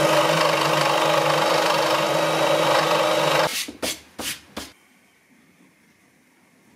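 Scroll saw running and cutting a wooden strip: a steady buzz from the reciprocating blade over a low hum. It cuts off suddenly about three and a half seconds in, followed by three brief knocks and then quiet room tone.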